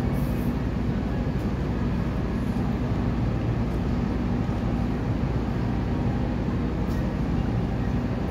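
City street noise: a steady low mechanical rumble with a constant hum, unchanging throughout.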